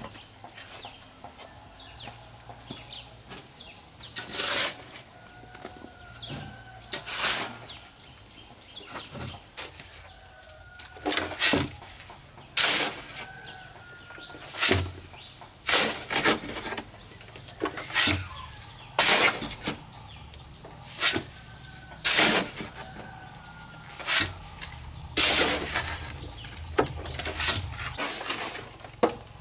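A shovel scraping and scooping sand out of a metal wheelbarrow in repeated strokes, about one every one to three seconds, with sand thrown between scoops.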